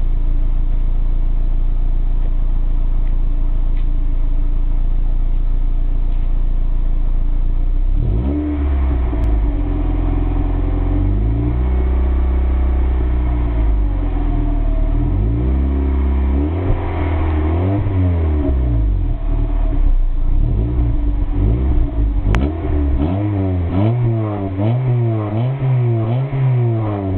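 Honda Concerto's D16A8 1.6-litre inline-four running through its stock exhaust. It idles steadily, then is revved in repeated blips from about eight seconds in, with quicker, shorter blips near the end.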